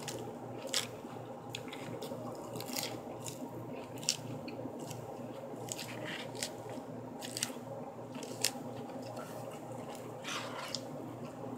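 Eating a crisp lettuce salad: a fork stabbing into the leaves and clicking against the plate, with crunchy chewing. There are sharp clicks about once a second over a steady low hum.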